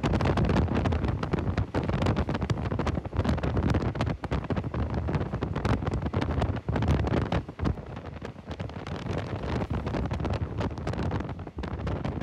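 Wind buffeting the microphone from the open window of a moving passenger train, with the train's running noise underneath.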